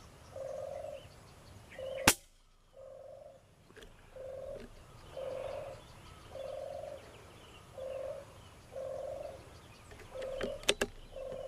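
A single rifle shot about two seconds in, against a low bird call repeated about once a second, each note about half a second long. A few sharp clicks follow near the end.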